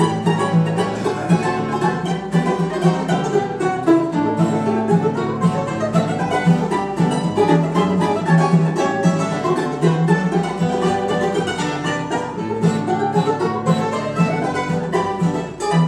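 A string trio of mandolin-banjo, mandolin and acoustic guitar playing a ragtime piece, the mandolin-banjo taking the melody over the second mandolin and guitar accompaniment.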